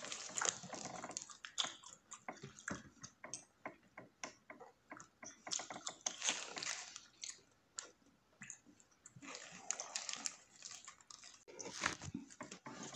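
Close-up chewing and biting of a footlong roll, with many small wet mouth clicks and smacks and short pauses between mouthfuls.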